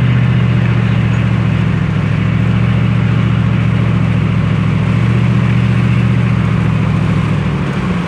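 Pickup truck engine running steadily at road speed, heard from inside the cab, with a steady hum of tyre and road noise. The engine note eases off near the end.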